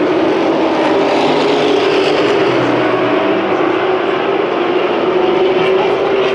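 A pack of short-track race trucks running laps together, their many engines blending into one steady, loud engine sound whose pitch drifts slightly up and down as they circulate.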